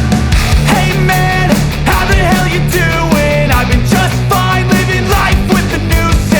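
Loud rock music with a driving beat, drums and distorted guitar.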